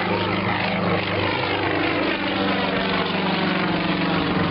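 Yak-55M aerobatic plane's nine-cylinder radial engine and three-blade propeller droning steadily at power just after liftoff, the pitch sinking slightly as it goes.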